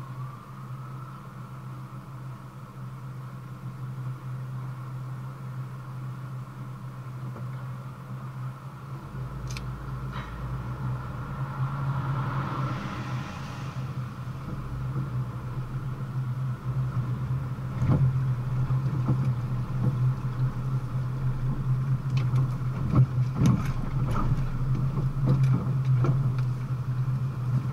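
A car driving slowly in city traffic: a steady engine hum and road noise that grow louder as the car gets moving, with scattered sharp knocks in the second half.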